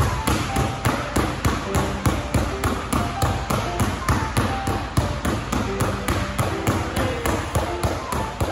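Two basketballs dribbled at once on an indoor sports-court floor: an even, quick rhythm of bounces, about four a second.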